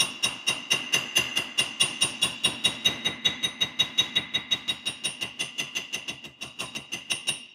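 Steady, rapid light hammer taps, about five a second, on thin tack-welded 304 stainless sheet resting on a steel block, each tap ringing metallically. The tacked joint is being lightly dressed flat and aligned; it is tapped gently, since hitting too hard would stretch the material.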